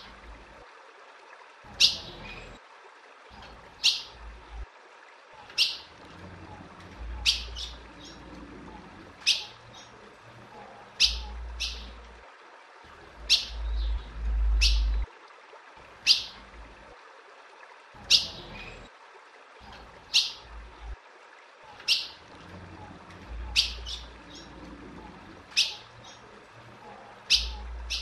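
Female ultramarine grosbeak (azulão) repeating a short, sharp call note, about one every two seconds.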